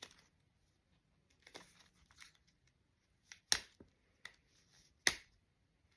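Fingers picking at a small makeup product's packaging while trying to open it: faint crinkling, then two sharp snaps, one past the middle and one near the end.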